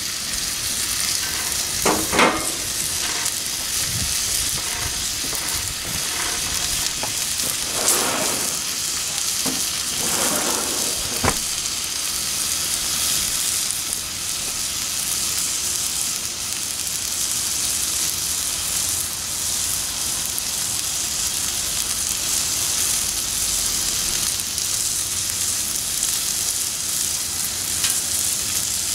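Steak sizzling steadily on a hot steel flat-top Pit Boss griddle, with a few brief louder crackles, the sharpest about eleven seconds in.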